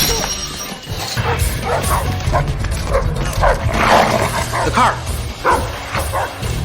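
Dog barking over and over in short, quick barks, with music running underneath.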